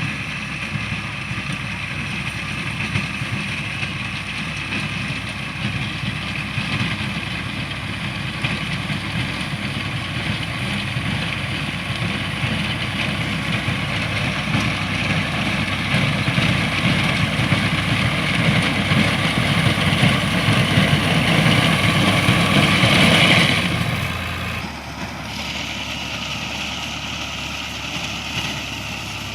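Engine of wheat-harvesting machinery running steadily with a continuous rumble. It grows gradually louder to its loudest near the end, then drops suddenly to a quieter steady run.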